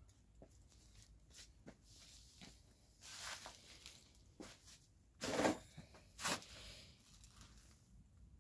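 Soft scuffing and rustling of someone moving among potted geraniums, with a few louder brushing sounds a little past the middle.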